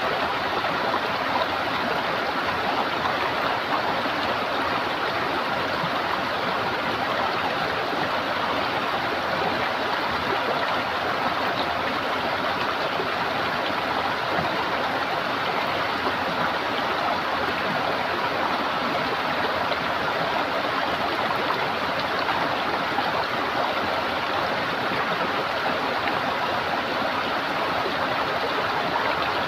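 Running water gurgling steadily, a constant wash with no breaks.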